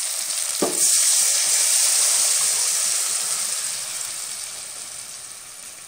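Tamarind gravy poured into hot sesame oil and sautéed onions in a kadai: a sudden loud burst of sizzling about a second in, which dies away gradually as the liquid cools the pan.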